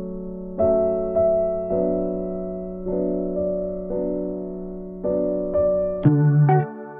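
Background music: a slow melody of sustained notes that each fade away, joined about six seconds in by a louder, choppier passage.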